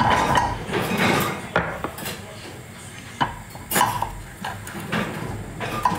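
Kitchen utensils and dishes clinking and knocking: a string of separate clatters, as of a ladle and crockery being handled.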